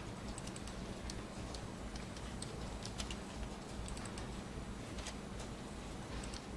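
Irregular, scattered clicks of a computer mouse and keyboard, over a steady low hum.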